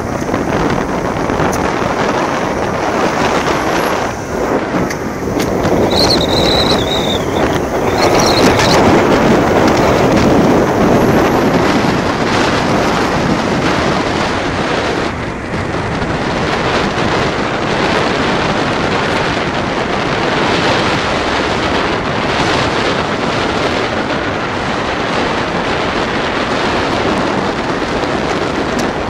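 Wind rushing over the microphone of a camera riding on a moving vehicle, with the vehicle's road and engine noise underneath. The noise is steady and swells slightly about eight to eleven seconds in.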